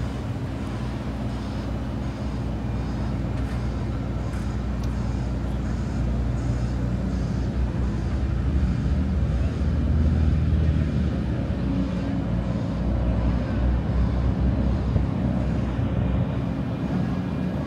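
Motor traffic: vehicle engines running with a steady low rumble that swells about ten seconds in, as if a vehicle passes close.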